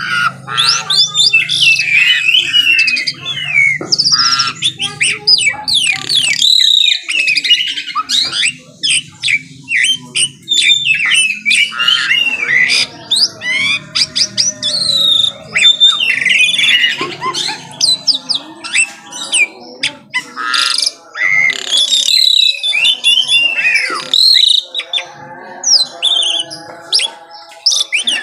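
Asian pied starling (jalak suren) singing vigorously: a fast, varied run of loud whistles, gliding notes, chatter and harsh squawks with short breaks. A low hum sits underneath for the first few seconds.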